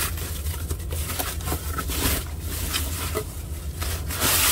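Thin plastic packing wrap rustling as it is lifted and pulled off a guitar kit body by hand, louder near the end, over a steady low hum.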